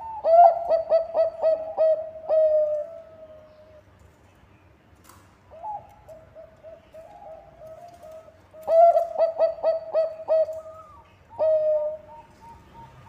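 Zebra dove of the perkutut bangkok strain cooing: two loud phrases of rapid, staccato repeated coos, one about a second in and one around nine seconds in, with a softer phrase of coos between them.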